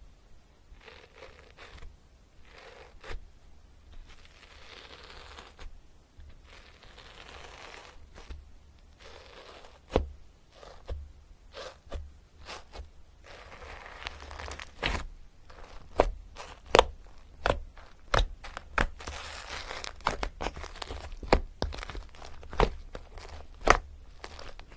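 Writing by hand on paper: scratchy pen strokes in short spells, with many sharp taps that grow louder and more frequent in the second half.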